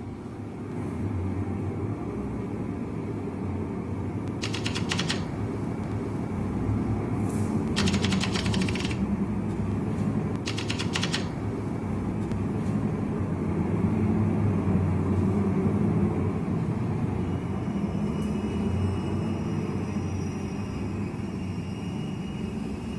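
Typewriter keys clattering in three short runs of rapid strokes, over a steady low rumble. Thin high tones come in faintly near the end.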